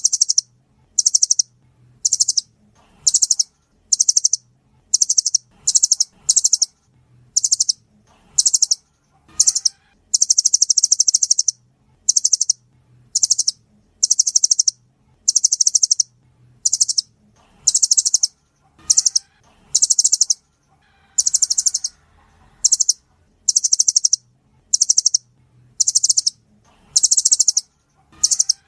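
Nuthatch calling in high, rapid trilled bursts, one after another about once a second, with one longer trill about ten seconds in.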